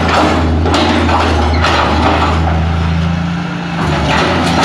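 Tracked hydraulic excavator's diesel engine running steadily as its bucket works through demolition rubble, with knocks and crunches of breaking debris. The engine hum dips briefly about three and a half seconds in.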